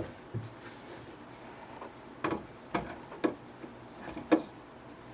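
About five separate wooden knocks and clunks, irregularly spaced, as pieces of a plywood belt-sander jig are handled and fitted back together.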